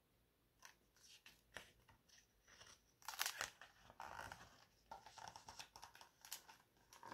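Paper rustling and crinkling as the page of a hardcover picture book is turned, starting about three seconds in after a few faint ticks.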